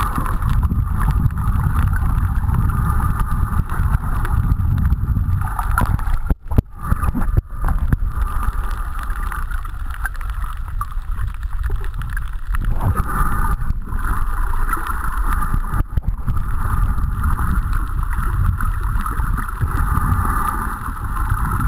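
Muffled underwater noise picked up by a camera submerged in a waterproof housing: a steady low rumble of moving water with a hiss that swells and fades, cut out briefly twice about six and a half and seven and a half seconds in.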